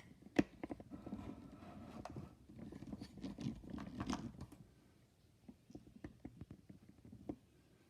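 Faint clicks and rattles of a half-inch-drive click-style torque wrench being handled and its handle turned to set the torque. There is one sharp click about half a second in, the small clicks are busiest in the first half, and then they thin out.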